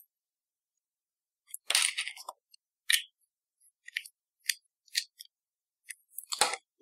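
A series of short clicks and taps of small hard objects being handled on a table, one every half second to a second, the loudest near the end.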